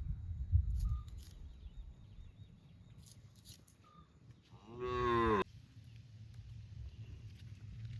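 A cow moos once, a short call rising in pitch, about halfway through.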